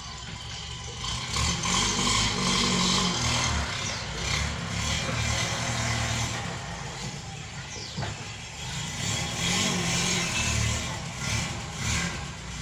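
A car's engine running, with road noise rising and falling as it moves.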